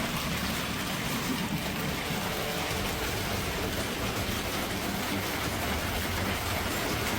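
Rain pouring steadily in a storm, an even unbroken hiss.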